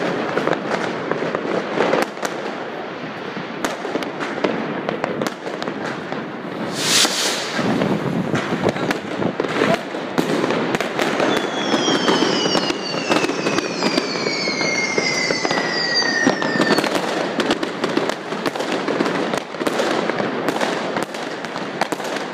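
Many fireworks and firecrackers going off at once: a dense, unbroken crackle of bangs, with one loud bang about seven seconds in. Midway through, a long whistle falls slowly in pitch over about five seconds.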